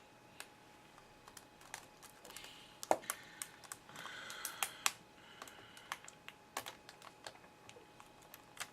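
Light, irregular clicks and a few short scraping rustles from hands working a laptop's LCD panel and its display cable free.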